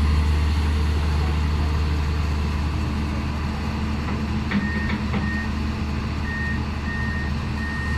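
Heavy diesel engine running steadily, most likely a backhoe loader at work. About halfway through, a reversing alarm starts up, beeping at an even pace a little under twice a second.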